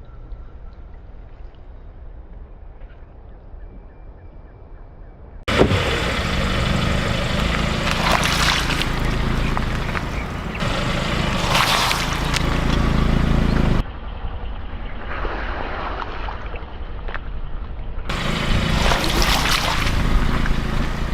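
Car tyres rolling over floral foam and crushing it, a crackling, squishing noise over the car's low rumble. The crushing starts suddenly about five seconds in, eases off for a few seconds past the middle, then picks up again near the end.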